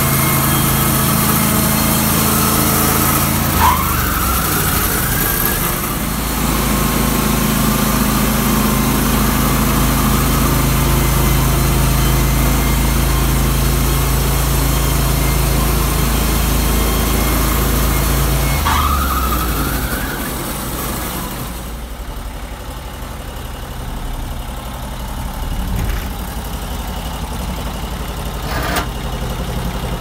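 Norwood portable bandsaw mill running, its engine steady under load and the band blade hissing through a log. About four seconds in and again near nineteen seconds comes a brief rising whine. After the second one the sawing noise fades and the engine settles to a lower, quieter idle as the cut ends.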